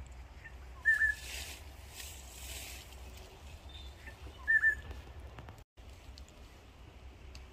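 A bird calling twice, a short whistled note about three and a half seconds apart, over a low steady rumble.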